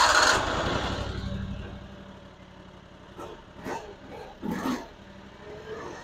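The Fland FL45 mini loader's engine starting up, loud as it catches and then settling over the next couple of seconds to a quieter steady idle. A few short clunks come between about three and five seconds in.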